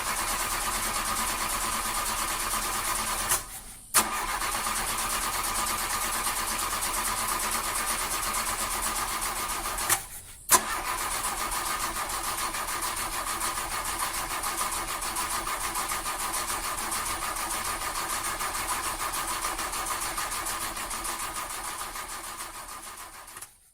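A car's starter motor cranking the engine over without it catching: the car won't start. There are three long bouts of cranking, broken by short pauses about 4 and 10 seconds in, and each new bout begins with a sharp click.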